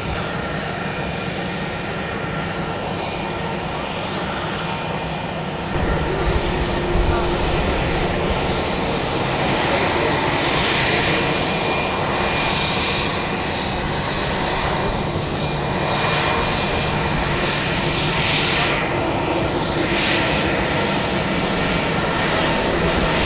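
Jet engines of an Airbus A320-family airliner taxiing at low thrust: a steady rushing hiss with a thin whine, getting louder about six seconds in and swelling as the aircraft passes close by.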